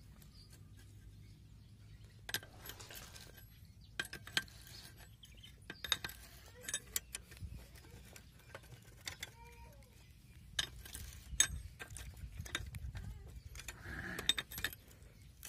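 Irregular metallic clinks and clicks of a spanner working a bolt on a steel jig that clamps a brass sprinkler nozzle, the sharpest about eleven seconds in.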